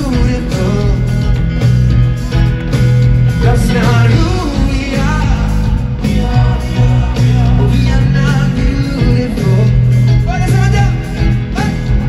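Live pop-rock music from a stadium PA: a full band with a steady, heavy bass line and a voice singing.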